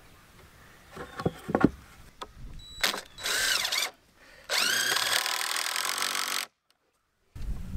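Cordless drill running on a screw in the wooden corner of a raised garden bed. A short burst of the motor comes first, then a steadier run of about two seconds that cuts off suddenly. A few sharp knocks come before the drilling, about a second in.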